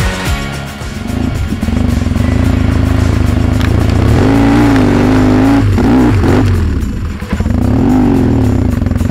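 Yamaha XTZ750 Super Ténéré's parallel-twin engine running as the motorcycle rides over a grassy field track, its revs rising and falling a few times in the second half, under a music track.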